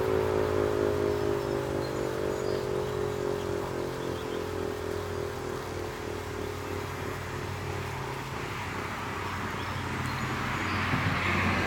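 Gryphon BS 2048 electro-mechanical siren winding down after a short alert: its tone slides slowly lower and fades out over the first half, leaving a steady low hum underneath. A rushing noise swells briefly near the end.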